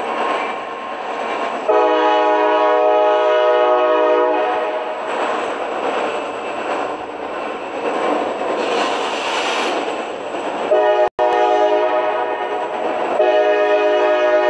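Air horn of a Kansas City Southern freight train led by two EMD SD40-2 diesel locomotives, sounding long blasts as it approaches: a multi-note chord held for about two and a half seconds, then, after several seconds of locomotive and train rumble, two more long blasts back to back near the end.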